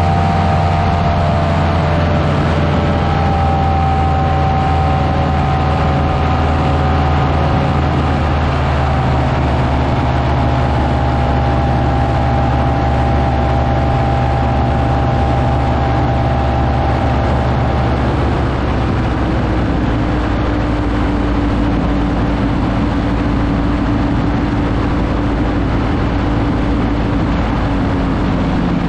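Buckeye Dream Machine powered parachute's engine and propeller droning steadily in flight. The engine note drops slightly about a third of the way in, and again a little past halfway.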